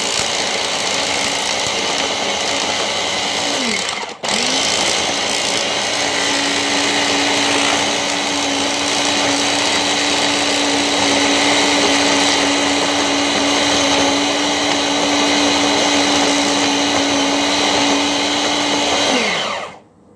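Ninja Ultra Prep food processor's motor running, its blades churning thick cookie dough in the pitcher. It stops briefly about four seconds in, spins back up and runs steadily, then winds down near the end. The dough is not mixing, which the cook puts down to a stick of butter that is not soft enough.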